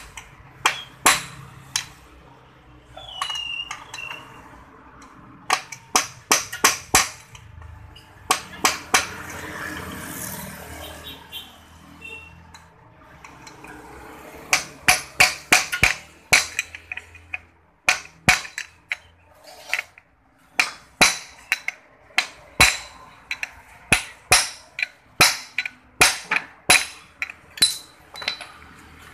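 A hammer striking a steel tool against the motorcycle's exhaust pipe joint at the engine: runs of sharp metallic clinks, settling into about two blows a second over the second half.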